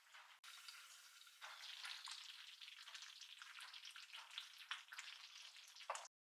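Faint, dense sizzling crackle of food frying, cut off abruptly near the end.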